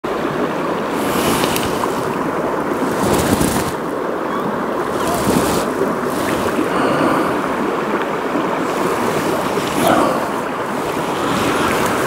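Shallow river running over rocks: a steady rush of flowing water that swells briefly a few times.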